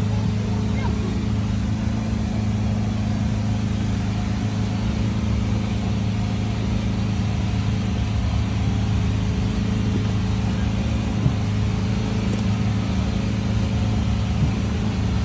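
Boat engine running steadily with a low, even drone, over a constant rushing noise.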